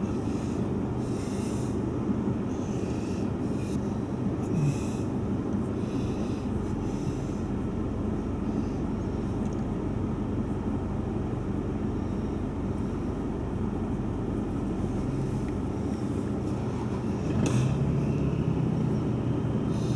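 Four-wheel drive's engine idling, heard from inside the cabin. It is a steady low rumble that gets a little louder near the end.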